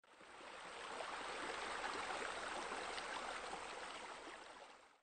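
Running water, a steady splashing rush that fades in over about a second and fades out at the end.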